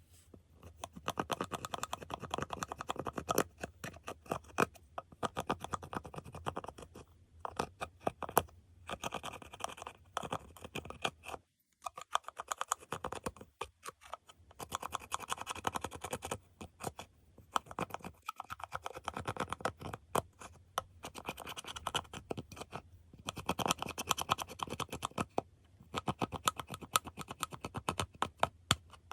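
Dense scratching and sticky clicking of eyeshadow being scraped and worked into slime. It comes in stretches broken by short pauses.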